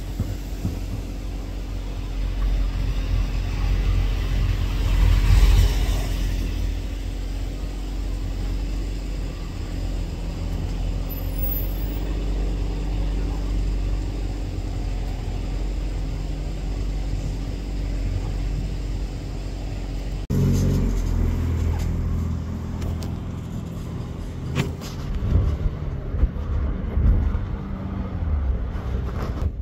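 Steady rumble of motor vehicle engines and passing road traffic, swelling louder about five seconds in. Several sharp pops come in the last few seconds.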